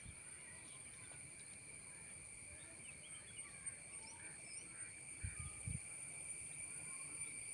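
Steady chorus of insects, several continuous high-pitched buzzing tones, with faint scattered bird chirps. A couple of low thumps come about five seconds in.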